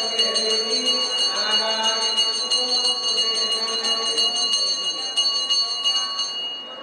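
Temple bell rung rapidly and continuously during an aarti, a bright ringing with a fast stream of strikes, stopping shortly before the end.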